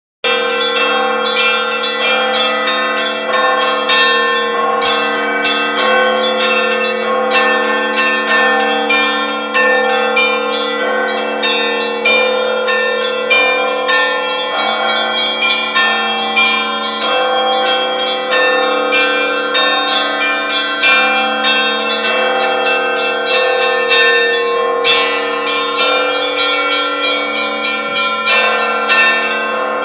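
Russian church bells ringing together without pause: the smaller bells are struck rapidly over the lasting hum of the larger bells.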